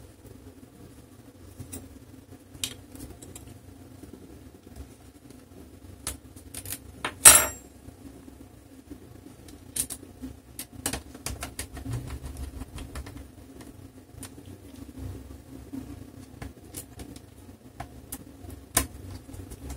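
Scattered small clicks and taps of a screwdriver and screws against the plastic bottom case of an HP Pavilion 15 laptop as the case screws are driven back in, with one louder clatter about seven seconds in.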